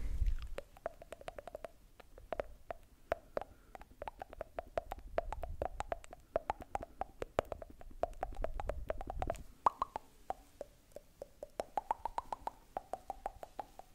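Rapid tongue clicks and wet mouth pops made close to a microphone into a cupped hand, several a second. Each click carries a hollow pitched ring that moves higher near the end.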